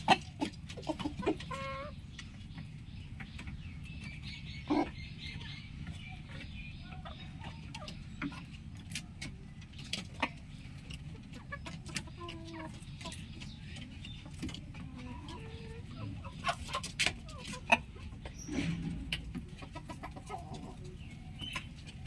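A rooster giving short clucks now and then, with small birds chirping in the background and scattered clicks over a steady low rumble.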